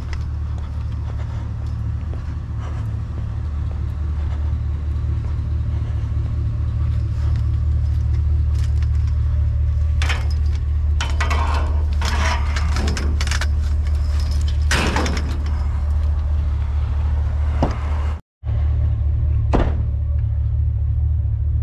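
Pickup truck engine idling steadily, with a run of metal clattering and knocks in the middle as scrap is lifted over the rack and dropped into the truck bed.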